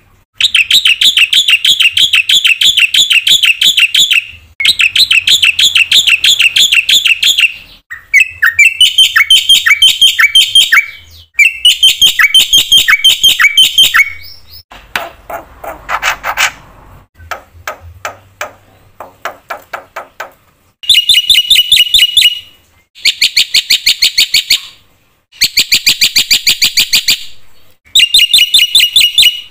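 Black-winged myna (jalak putih) singing a long series of loud phrases, each a rapid run of repeated notes lasting a few seconds, with short pauses between. The song is full of mimicked calls of other birds. About halfway through comes one lower, harsher phrase and a softer run of ticking notes.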